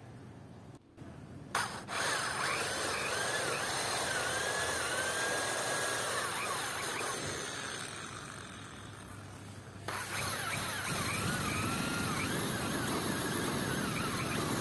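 Electric drill boring pilot holes into pine wood. It starts about a second and a half in and runs for several seconds, its pitch wavering as the bit bites, dies down, then starts again about ten seconds in.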